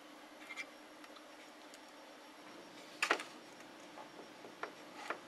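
A few faint, sharp clicks and taps from a soldering iron and hands handling a metal radio chassis and its RF connector while the leads are soldered on, the loudest about three seconds in, over a faint steady hum.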